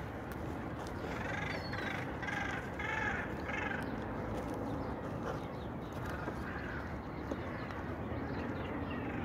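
Animal calls: a quick run of about five short, arched cries, then two fainter ones a few seconds later, over a steady outdoor hiss.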